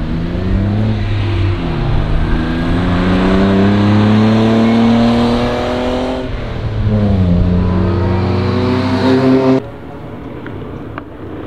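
A car accelerating hard past the trackside, its engine note climbing and dropping back twice as it changes up through the gears. About nine and a half seconds in, the sound cuts off suddenly to a much quieter background.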